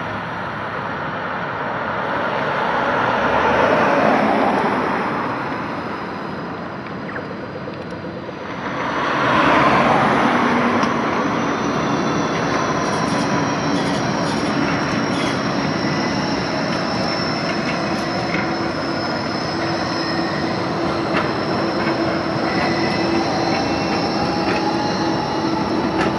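Bombardier Flexity 2 light-rail tram approaching and pulling into a stop, its electric drive and wheels giving a steady whine with a high tone and a lower tone that slowly rises near the end. Before it, road traffic passes twice, loudest about 4 and 10 seconds in.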